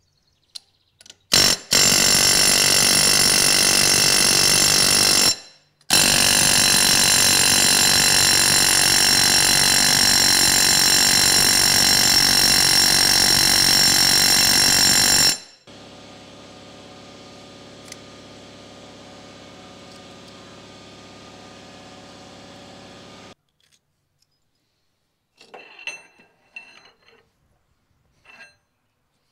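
Handheld pneumatic air tool running on the wheel hub's nuts in two long, loud, steady high-pitched runs, then a quieter steady running for several seconds. A few light metal clinks near the end as the axle shaft is drawn out of the hub.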